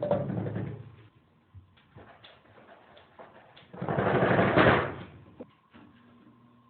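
A door rattling and banging in its frame as a cat knocks at it: two loud bouts about a second long, at the start and about four seconds in, with a few light taps between.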